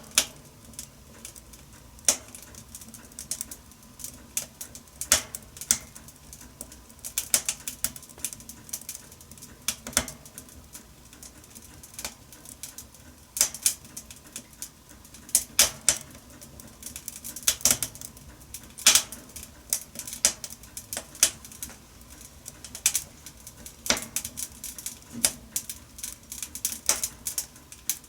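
Wood fire crackling in a wood-burning stove: irregular sharp snaps and pops, some much louder than others, over a faint steady hiss of the flames.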